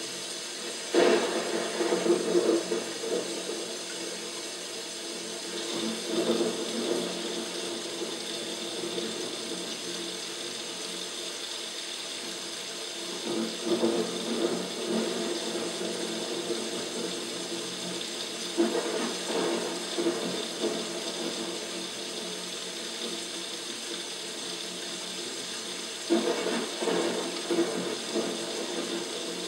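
Paludarium rain system running: water from an overhead rain bar falling onto the plants and the water below in a steady hiss, with louder rushing swells five times, every five to seven seconds.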